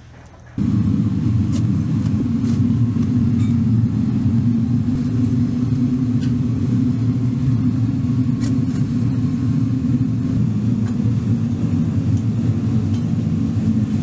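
A steady, loud, low rumble of machinery running, with a few faint ticks and taps above it. It starts suddenly about half a second in.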